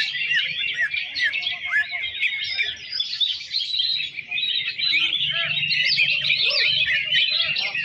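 Many caged greater green leafbirds (cucak ijo) singing at once at a songbird contest: a dense chorus of overlapping chirps and whistles that never lets up.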